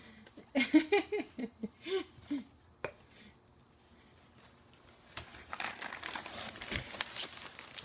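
Brief voice sounds, a single click, then from about five seconds in, continuous rustling with small clinks and ticks as the next gift is unwrapped and handled.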